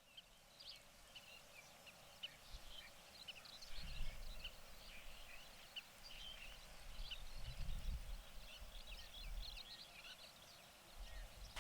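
Many small birds chirping, in short scattered calls, over a faint background with a low rumble that swells a few times.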